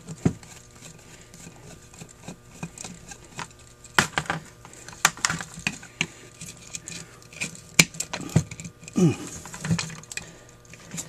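A screwdriver working screws out of a cast-metal Holley 1904 one-barrel carburetor, making scattered metallic clicks, taps and scrapes as the tool and parts are handled, with a few sharper clicks.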